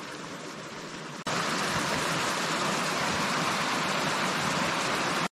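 Small river rapids: whitewater rushing steadily over rocks. It cuts in abruptly about a second in, louder than the softer steady hiss before it.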